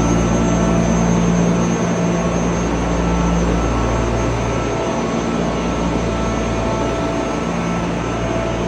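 Trailer-mounted industrial chiller (portable air-conditioning unit) running: a loud, steady rushing noise with a low hum underneath, the hum fading about a third of the way through and coming back near the end.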